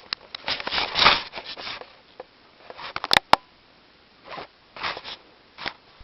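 A cat playing, with irregular bursts of scratching and rustling and two sharp clicks about three seconds in.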